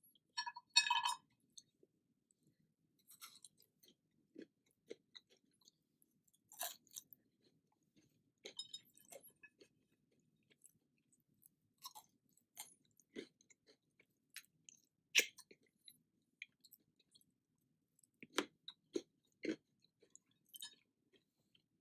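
Close-up eating sounds: scattered crunching bites and chewing of a crisp snack, with a short bright sound about half a second in.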